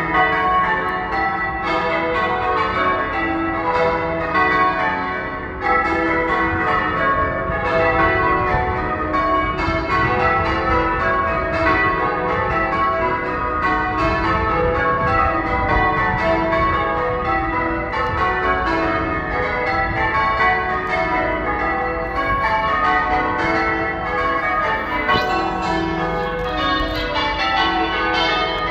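Church tower bells rung in changes: a continuous, even stream of overlapping bell strikes, each note ringing on into the next.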